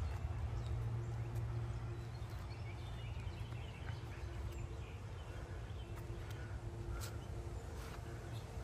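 Quiet outdoor background: a steady low hum with faint high held tones that come and go, and a few light clicks.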